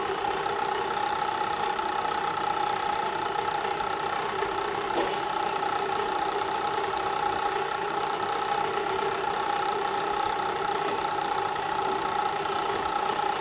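Steady electric motor hum from the magnetic stirrer of a digital ring and ball apparatus, stirring the heated water bath. It runs evenly, with a few constant tones.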